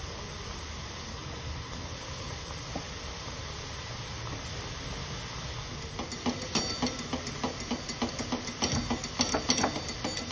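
Shankarpali dough pieces sizzling steadily in hot oil in a steel kadai. From about six seconds in, a wire-mesh spider skimmer clinks and taps in quick succession against the pan as the pieces are stirred and turned.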